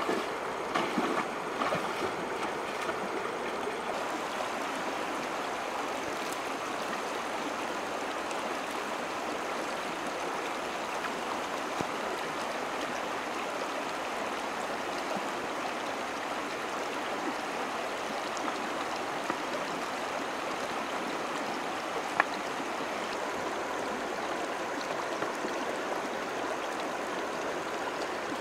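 Shallow, rocky stream running over stones, a steady rushing and gurgling of water. Bare feet splash through the water in the first few seconds, and a single sharp knock sounds later on.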